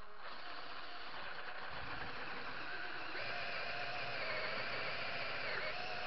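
Makita cordless drill running with a steady whine as its bit opens out a hole at an angle in a metal bracket plate.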